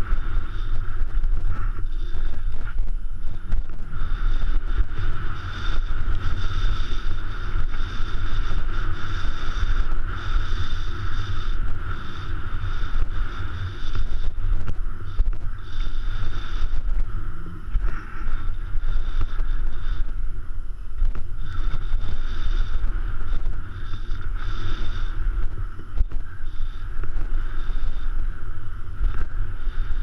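A YT Capra mountain bike descending a rough dirt-and-rock trail at speed: constant tyre rumble and many small knocks and rattles from the bike over stones and roots, with wind buffeting the GoPro's microphone.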